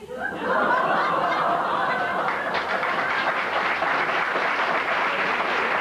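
Studio audience laughter that swells up quickly after a punchline, with clapping joining in about two and a half seconds in and carrying on.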